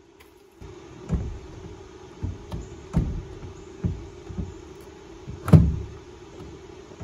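Irregular dull knocks and clunks, about seven spread over several seconds with the loudest about five and a half seconds in, from a hand tool and hands working on the truck's door frame as the tow mirror's mounting bolts are tightened.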